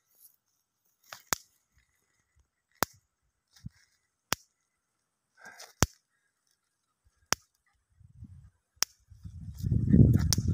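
Electric fence energiser pulses snapping every second and a half, about seven sharp cracks. They are the sound of the current shorting through a boomslang caught on the live wire. From about nine seconds in, a loud low rumbling noise on the microphone covers them.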